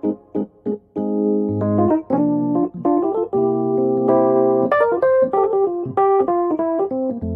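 Background music played on an electric-piano-like keyboard: short notes, then a run of held chords, then quicker notes again.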